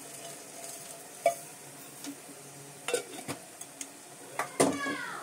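A spoon stirring wheat-flour halwa in a kadhai over a faint sizzle of ghee, with scattered scrapes and clinks of metal against the pan and the loudest clatter near the end.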